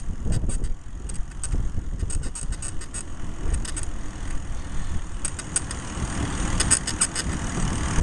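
Bicycle being ridden, heard close up: wind and road rumble on the microphone, with clusters of short high squeaky ticks that the rider puts down to her squeaking seat.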